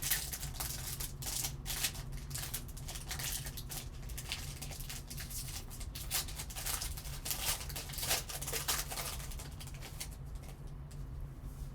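Pack of 2020 Panini XR football cards being opened by hand: the wrapper crinkles and rustles in quick irregular crackles as it is torn and the cards are pulled out. The crackling thins out near the end.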